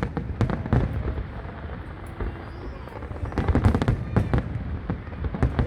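Fireworks going off: a rapid, irregular run of sharp bangs and crackles over a continuous low rumble, thickest about three to four and a half seconds in.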